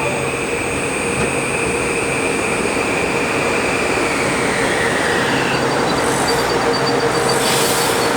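Passenger train running past at speed: a loud, steady rushing rail noise with a high whine that glides down in pitch about four to five seconds in.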